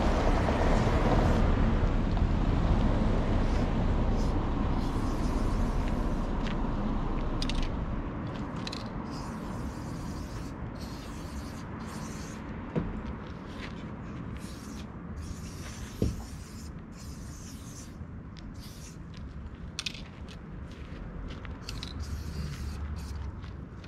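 Aerosol spray paint can hissing in many short bursts with brief pauses between them, over a low traffic rumble that is loudest for the first several seconds. Two sharp knocks land a little past the middle.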